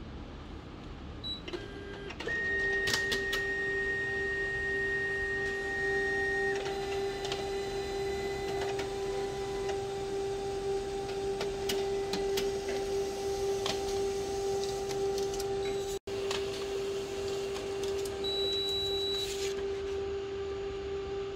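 Canon colour multifunction printer making a colour copy. About two seconds in it starts up with a steady hum and a high whine; the whine stops after about four seconds, while the hum runs on with repeated clicks of the paper feed. A short high tone sounds near the end.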